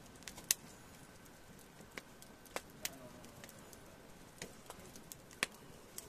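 Wood fire crackling, with irregular sharp pops from the burning logs; the loudest pops come about half a second in and near the end.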